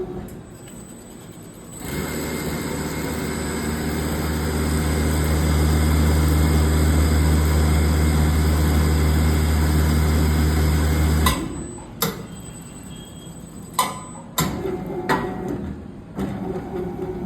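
Kisan Engineering KIJ150 automatic CNC stator winding machine running a winding cycle on a 12-slot stator with aluminium wire. A steady motor hum starts about two seconds in, builds over the next few seconds, and cuts off abruptly near eleven seconds. A few sharp mechanical clicks follow.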